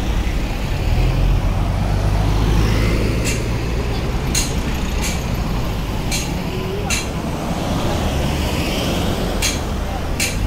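SUVs driving slowly past at close range, with a steady low engine and tyre rumble. A few short sharp clicks come at uneven intervals.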